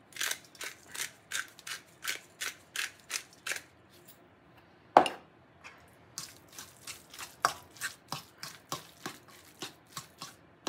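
Hand pepper grinder twisted in short turns, grinding with about three clicks a second for roughly three and a half seconds. A single loud knock follows about five seconds in. Then a utensil clicks and scrapes against the stainless steel mixing bowl as the egg salad is stirred.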